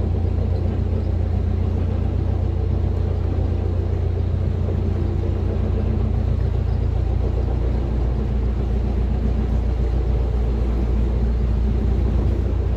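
Narrowboat's diesel engine running at cruising speed, a steady low drone; its tone shifts a little lower about halfway through.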